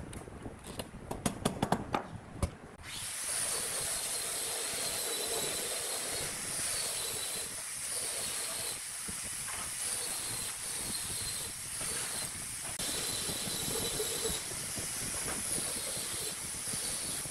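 A quick series of sharp metallic clicks and knocks as steel C-clamps are handled and screwed onto thin bent wood strips. About three seconds in it gives way to a steady high hiss.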